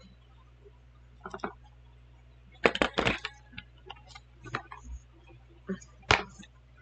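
Makeup containers and tools being handled and set down on a table: scattered light clicks, clinks and knocks, the loudest a cluster about three seconds in and a single sharp knock about six seconds in.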